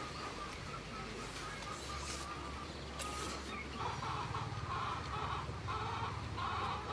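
Chickens clucking, about four short clucks from around four seconds in, with a brief slurp of noodles about three seconds in.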